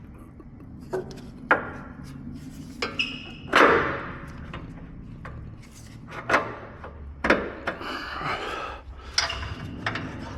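Scattered metallic clinks and knocks, some ringing briefly: hand tools and suspension parts being handled while a front lower control arm and its ball joint are fitted back onto the car.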